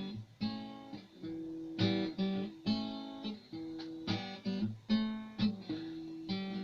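Acoustic guitar playing an instrumental introduction: chords strummed and plucked in a steady rhythm, each chord ringing out and fading before the next.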